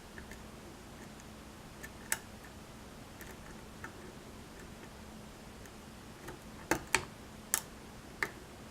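Sharp, scattered clicks from a pin tumbler lock being picked with a hook pick under light tension, as pins set and drop; one click near two seconds in and a quick run of four in the second half.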